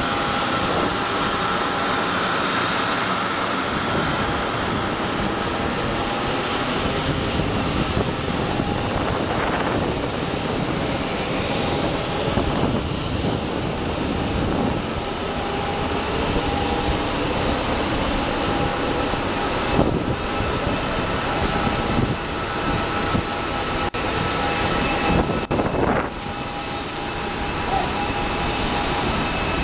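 Steady jet-turbine noise of aircraft on the apron: a continuous rush with a few thin, high steady whining tones over it.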